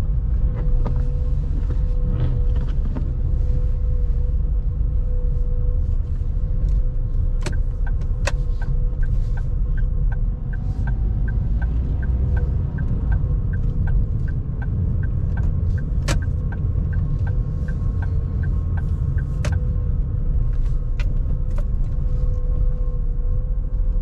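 Car driving, heard from inside the cabin: a steady low road and engine rumble with a faint constant hum. About a third of the way in, a light regular ticking of about two a second starts and runs until near the end, with a few sharper clicks.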